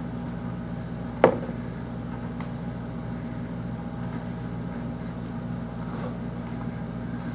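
Steady low machine hum, like a fan or air conditioner running, with one sharp click about a second in and a few fainter clicks.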